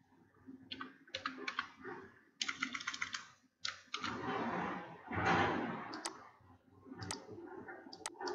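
Computer keyboard typing in short bursts of keystrokes, then a few single clicks. In the middle comes a louder breathy rush of noise lasting about two seconds.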